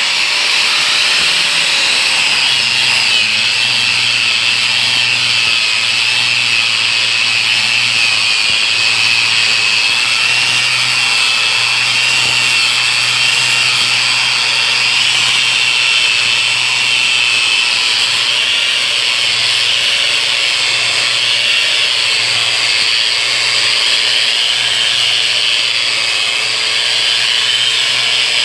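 Angle grinder running continuously under load with a steady whine, sanding a surface.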